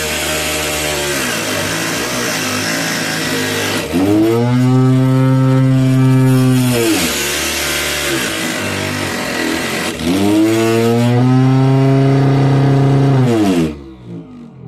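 Homemade DC-motor cutting machine with a thin blade, cutting MDF board. The motor whine sags in pitch as the blade bites into the board and speeds back up when it runs free, twice over. Near the end it winds down and stops.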